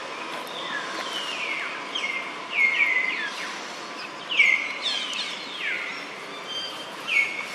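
Repeated high chirping calls, each a quick downward sweep in pitch, coming in small clusters of two or three throughout, over steady outdoor background noise.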